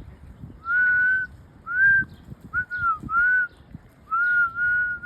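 A person whistling a string of about seven short, clear notes of nearly the same pitch, each with a slight rise or fall, the longest near the start and the end.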